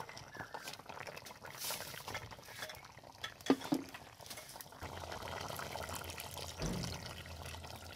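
Fish and tomato curry simmering in a metal pot, the liquid bubbling, with two sharp clicks about three and a half seconds in.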